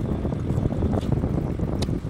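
Two people eating khichdi with their hands, with a few short smacking clicks about a second in and near the end, over a steady low rumble of wind noise on the microphone.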